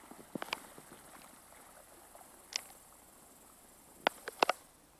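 A few sharp, brief clicks and taps: a pair about half a second in, one in the middle, and three close together near the end, the loudest, over a faint steady hiss.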